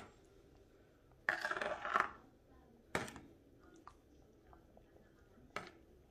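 Metal spoon stirring sauce in a stainless steel pot, with a scrape about a second in and sharp clinks against the pot at about three and five and a half seconds.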